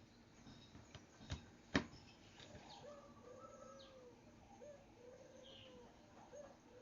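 Albino Barbary dove (puter) cooing: a repeated low call, each a short rising note followed by a long, slightly arched held note, heard several times. Two sharp clicks a little before two seconds in are the loudest sounds, with faint high chirps of small birds in the background.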